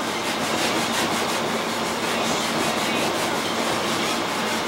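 A thinner-soaked rag rubbed briskly over an elk antler: a steady scrubbing made of quick back-and-forth strokes. The rubbing thins out and lightens the color on the antler.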